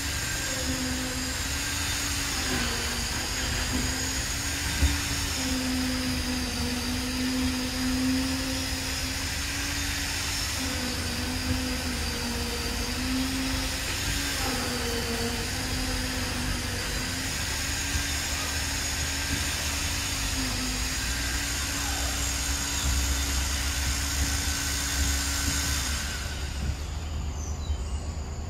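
Steady mechanical drone, like an engine or motor running, its pitch wavering a little; it cuts off about two seconds before the end, over a low rumble.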